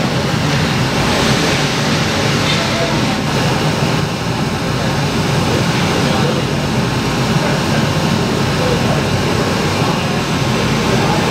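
Ice rink din: a loud, steady wash of many voices and skating noise with no single sound standing out. It cuts off just after the end.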